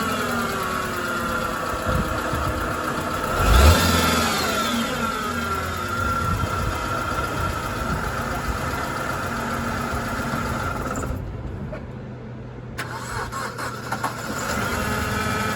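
BMW 320si engine running with a steady whine, making the noises the owner calls weird and alarming. About four seconds in it gives a brief loud rise and fall in pitch, like a short rev.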